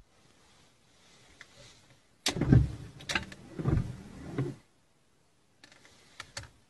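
Car windshield wipers sweeping across the glass, heard from inside the cabin: the wiper motor and blades start abruptly a little over two seconds in and run for about two seconds in uneven swells with sharp clicks.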